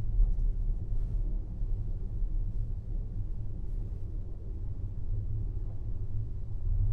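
Steady low rumble inside a descending gondola lift cabin as it runs along the haul rope between towers.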